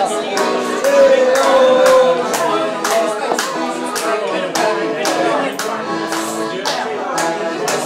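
Live music with singing over a steady beat of sharp strokes, about two a second; a single note is held for about a second near the start.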